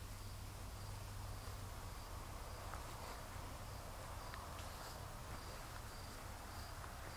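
Faint chirping of insects outdoors, a high note pulsing about twice a second, over a soft steady low hum.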